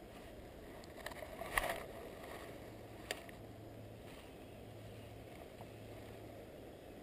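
Spinning reel on a light trout rod being cast and retrieved: a few sharp clicks about a second and a half in as the bail is worked and the lure goes out, another click around three seconds, then a low steady whir of the reel being cranked, over a faint steady rush of water.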